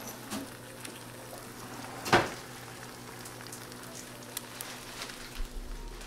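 Eggs frying in butter in nonstick pans on a gas cooktop: a steady sizzle with scattered small crackles. One sharp knock about two seconds in.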